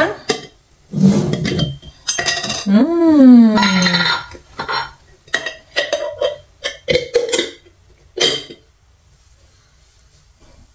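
Small glass jars and metal screw-on lids clinking and knocking on a wooden floor as a toddler handles them, a run of sharp knocks that stops short of the end. About three seconds in, a voice makes one short sound falling in pitch.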